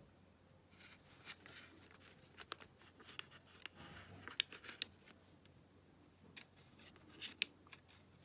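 Faint small clicks and light scraping as a small rubber drive belt is worked onto the pulleys of a personal cassette player's tape mechanism, with a few sharper clicks around the middle and near the end.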